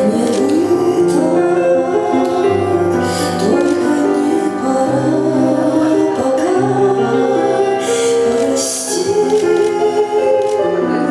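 Music: an instrumental passage of a slow ballad, with held chords over a bass line and a bright wash swelling up every few seconds.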